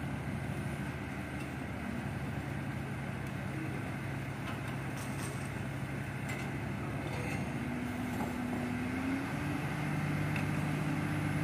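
Heavy-equipment engine, from the crawler crane or forklift lifting a metro coach, running steadily at a low pitch, revving up slightly about eight seconds in and again near ten seconds.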